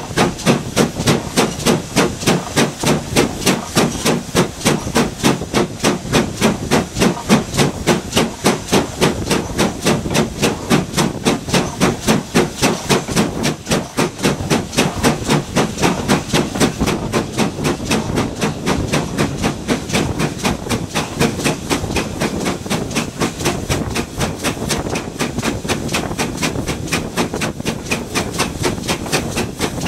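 GWR Modified Hall 4-6-0 steam locomotive 7903 working along under steam, its two-cylinder exhaust beating in a steady, even rhythm over a constant hiss of steam. The beats grow weaker over the last third.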